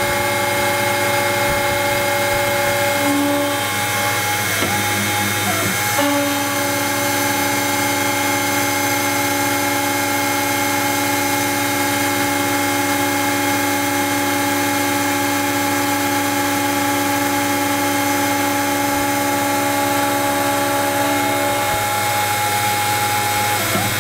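Pro Light benchtop CNC milling machine facing off a block of machinable wax, its end mill cutting while the motors whine in several steady tones. The tones shift about four to six seconds in, and one drops out a few seconds before the end.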